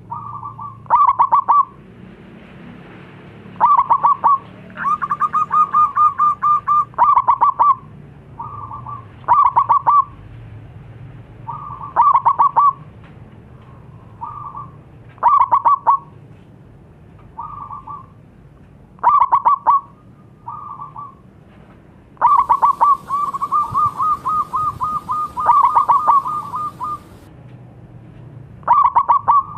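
Zebra dove (perkutut) cooing: repeated bursts of rapid, staccato coos every couple of seconds, with two longer rolling runs, one a few seconds in and one near the end, and fainter short coo phrases in between.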